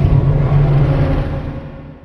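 Godzilla sound effect: a loud, low rumbling sound that fades away gradually over about two seconds.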